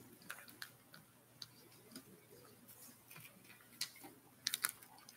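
Faint, scattered light clicks and taps in a quiet room, with a quick run of several close together near the end.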